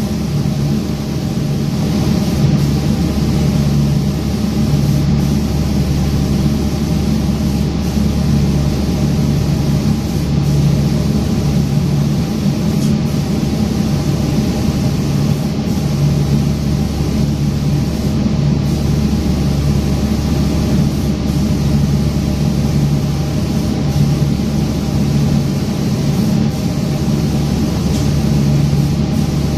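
Automatic lacquer-spraying machine running in its booth: a steady loud motor hum with a hiss over it, pulsing slightly about every two and a half seconds as the gantry's spray gun makes its passes.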